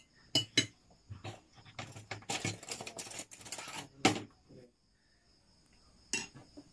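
Metal spoon and fork clinking and scraping on ceramic plates while eating, with a dense run of scraping in the middle and a sharp knock about four seconds in.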